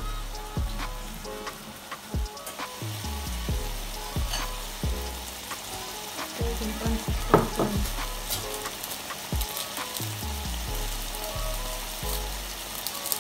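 Food sizzling in a frying pan, a steady hiss, with scattered clinks and knocks of kitchen utensils against a metal sieve, pot and bowl; the loudest knock comes about halfway through. Background music plays underneath.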